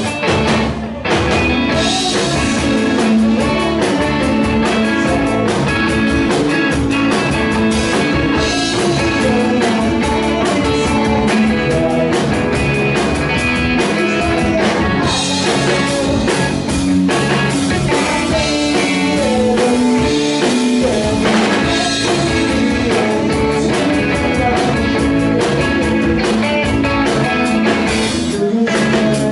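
Live rock band playing loudly: electric guitar, bass guitar and drum kit, amplified on a small club stage.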